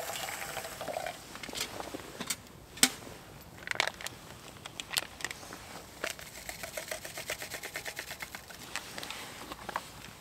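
Hot water poured into a steel camping mug, the pour ending about a second in. A few separate sharp metal clinks follow, the loudest near three seconds in, then a spoon stirring hot chocolate in the mug, clinking rapidly and evenly against its sides for several seconds.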